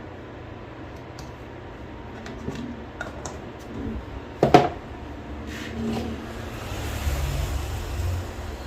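Small hand tools clicking and tapping against each other and the bench during electronics repair, including one sharper click about four and a half seconds in, over a steady low hum.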